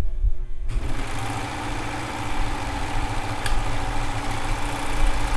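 Brother serger running at speed, stitching and overlocking a seam. It starts with a brief hum, then settles into a steady, fast mechanical running.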